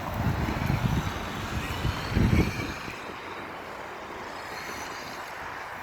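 Traxxas X-Maxx RC monster truck driving, with faint electric motor whine over irregular low rumbling. There is a louder thump about two seconds in, and after about three seconds the rumbling dies down to a steady quieter noise.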